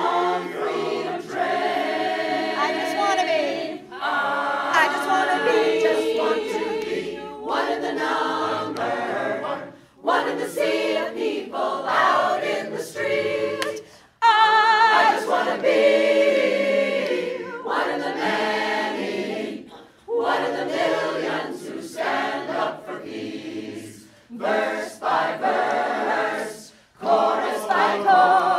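Mixed choir of men and women singing a cappella in phrases, with short breaks between phrases every few seconds.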